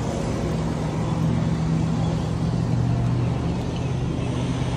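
A motor vehicle's engine running at a steady speed, a low even hum with no change in pitch.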